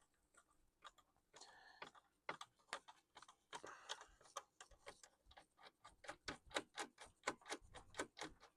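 Faint, quick run of light clicks and ticks, about four or five a second, from small parts and tools being handled while taking a laptop apart.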